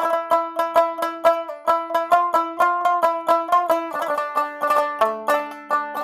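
Background music of quickly picked plucked strings, banjo-like, in an even rhythm of about five notes a second over a held lower note that changes pitch a few times.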